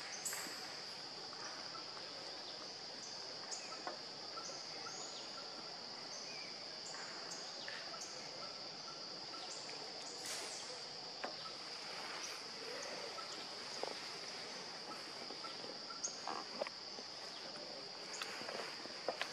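Insects droning steadily at one high pitch, forest background sound, with a few short high chirps and faint clicks over it.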